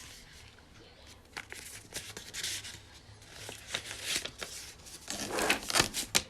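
Handling noise: rustling, crinkling and light clicks as the bag and its packaging are handled, with a louder, denser rustle about five seconds in.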